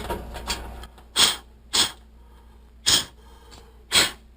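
Four short puffs of breath, sharp and hissy, spaced about a second apart.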